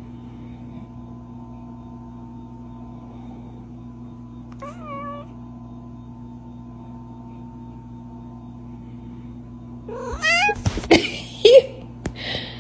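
A cat meowing to be fed: one short meow about halfway through, then several loud, screaming yowls near the end, over a steady low hum.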